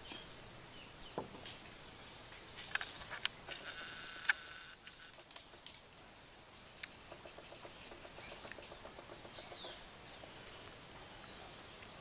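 Small birds foraging on the ground give scattered short chirps and calls, one falling call among them, with a few sharp clicks over a steady outdoor background hiss.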